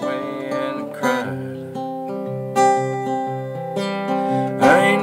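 Solo acoustic guitar strummed, a stroke about every second with the chords ringing on between strokes and the bass note changing under them.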